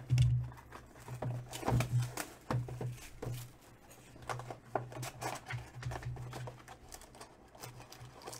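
Cardboard Panini Ascension basketball card box handled close to the microphone: a string of light taps, knocks and rustles as it is turned and gripped.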